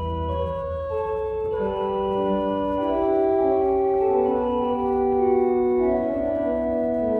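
Church organ playing slow, sustained, overlapping notes and chords on the manuals; the deep bass notes fade out about a second in.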